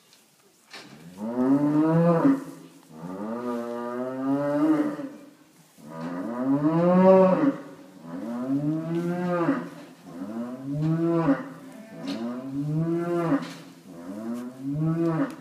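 Black-and-white dairy cow in labour mooing: about seven long calls in a row, each rising then falling in pitch, while the calf is being pulled from her.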